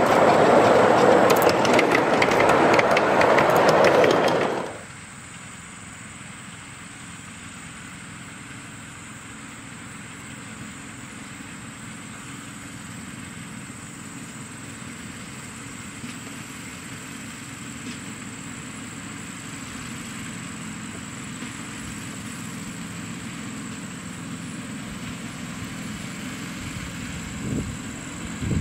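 Ride-on miniature railway train rolling past close by, its wheels clattering over the rail joints. After about five seconds the noise drops off suddenly to the train's much fainter steady low hum as it runs across the field at a distance.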